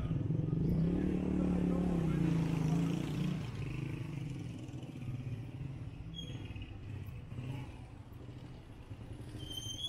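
A motor vehicle's engine passing close by, loudest over the first three seconds or so and then fading into steady street traffic noise.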